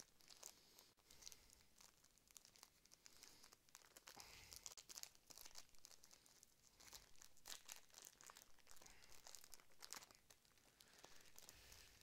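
Foil booster pack wrapper crinkling and tearing faintly as it is opened by hand, with many small crackles.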